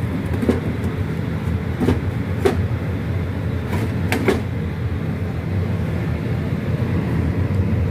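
A few light knocks and clinks, about five spread over the first half, as firebricks are set back into place in a gas solid-top range, over a steady low hum.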